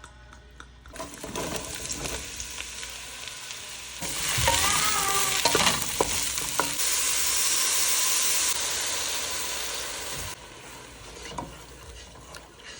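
Food sizzling in a hot pan while a utensil stirs and scrapes it, with several sharp clicks against the pan. The sizzle starts about a second in, grows louder about four seconds in, and eases off a little after ten seconds.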